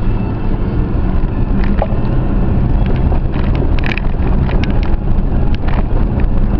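Off-road vehicle's engine running in a steady low drone as it climbs a trail, with scattered clicks and knocks over it, about a dozen, thickest in the middle.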